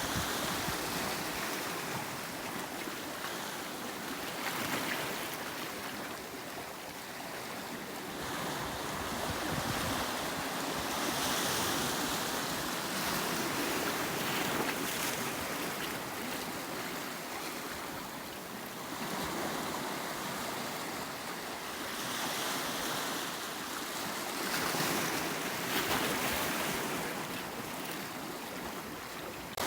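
Sea waves breaking and washing on a rocky coastal shore: a continuous rush of surf that swells and eases every few seconds as each wave comes in.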